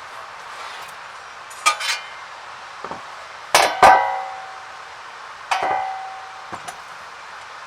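Metal clanking: about eight sharp knocks, the loudest pair about three and a half seconds in, several leaving a short metallic ring.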